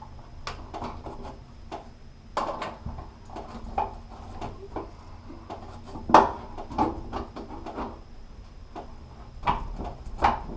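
A string of irregular clicks and knocks from a shower door's metal trim and frame being handled and adjusted, with the loudest knock about six seconds in.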